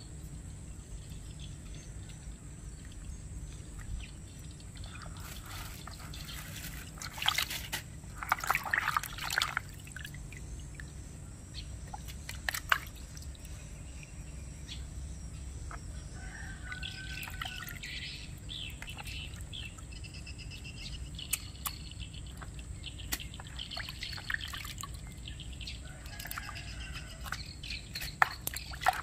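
Water sloshing and dripping in a plastic basin as a squid is rinsed and cleaned by hand, with a few louder splashes about a quarter of the way through. Birds chirp in the background, mostly in the second half.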